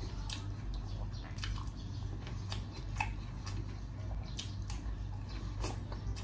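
A person chewing and biting into pineapple sweet-and-sour pork, with scattered short crunches and wet squishes of the double-fried battered pork over a steady low hum.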